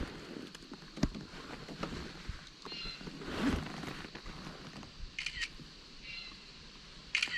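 Scattered faint clicks and knocks of handling a landed bass and fishing gear in a kayak, with a few short high chirps in the second half.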